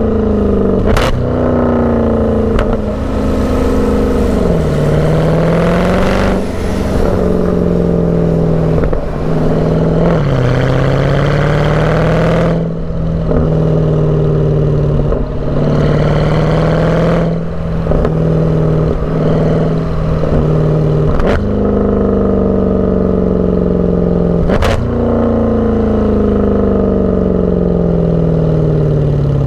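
Mercedes C63 AMG's 6.2-litre V8 exhaust, straight-piped with its resonator and secondary catalytic converters deleted, heard from an external exhaust microphone while driving. The engine note rises and falls with the throttle, holds steady for several seconds mid-way, then falls slowly near the end, with several sharp cracks along the way.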